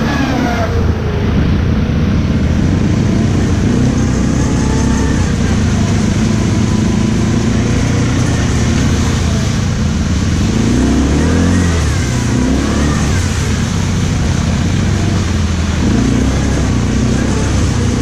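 ATV engine running while the quad is ridden, a steady low rumble with the engine pitch rising and falling as the throttle changes, most clearly around the middle.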